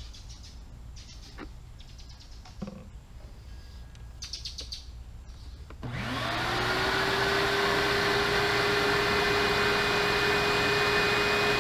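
Wet/dry shop vacuum switched on about halfway through, spinning up quickly to a steady whine and running loud, sucking the old engine oil out of an ATV crankcase from above. Before it, a few faint clicks and short bird chirps.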